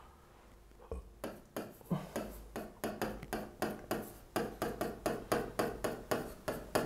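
A quick, even series of light taps, about four a second, starting about a second in.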